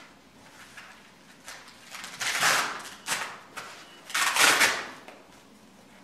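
Blood pressure cuff being wrapped and fastened around a patient's arm: two rasping bursts of fabric noise, about two and four seconds in, with fainter rustling between.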